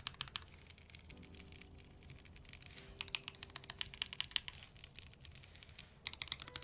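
Typing on a custom 60% mechanical keyboard with lubed NovelKeys Cream linear switches: quick runs of key clacks, busiest from about three seconds in, as the freshly soldered board is tried out.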